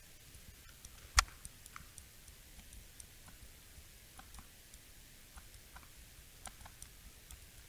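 Scattered faint clicks of a computer mouse as objects are placed and resized, with one louder click about a second in.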